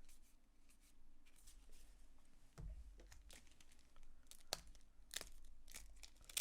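Faint paper rustling and crinkling of a baseball card pack wrapper being torn open, with cards being handled.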